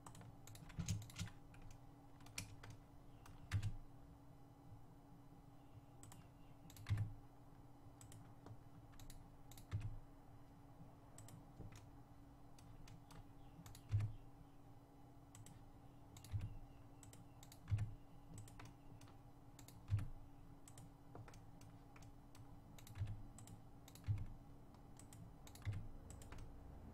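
Computer keyboard keys and mouse buttons clicking irregularly, a sharp tap every second or so, some in quick pairs, over a faint steady hum.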